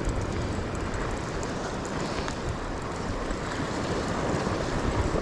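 Steady rumble of wind buffeting the microphone, with surf washing against the rocks.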